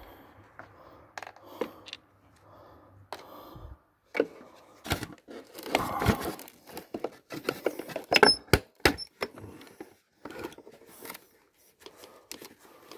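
Plastic housing of a Philips Performer Pro vacuum cleaner being handled while it is taken apart: irregular knocks, clicks and scraping of hard plastic, loudest in a cluster about six seconds in and again around eight to nine seconds.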